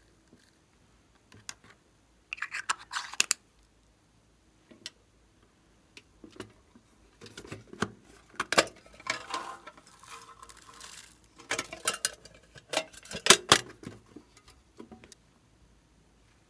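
Small plastic decoration pieces and their packaging being handled over a glass tray of slime: clicking, rattling and crinkling as bits are tipped in. There is one short burst about three seconds in, then a longer busy stretch through the middle.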